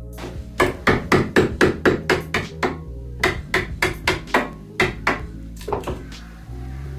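A hammer striking, driving a wooden handle into the socket of a slash hook: about twenty quick blows, some three or four a second, with a short pause midway.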